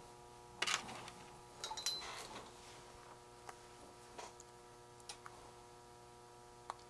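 Faint clicks and taps of small electronic parts being handled, a cluster in the first couple of seconds then single ticks about a second apart, over a faint steady electrical hum.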